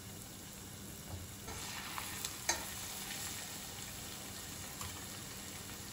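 Cornflake-coated chicken strips deep-frying in hot oil: a quiet, steady sizzle with a few faint pops.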